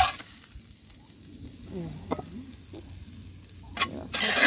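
Metal spoon and spatula scraping across a cast iron skillet as food is scooped out, over a low sizzle from the hot pan. A short scrape right at the start, then louder scraping near the end.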